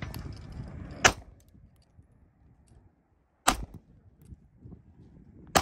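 Three single gunshots from firearms, about two seconds apart. The first comes about a second in and the last right at the end.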